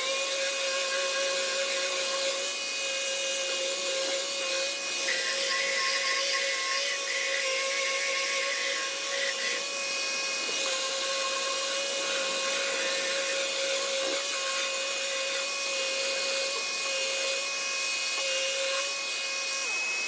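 Random orbital sander with a hose-connected dust extractor, running steadily as it sands the old paint off a wooden beehive box: a steady whine over a broad hiss of sanding and suction.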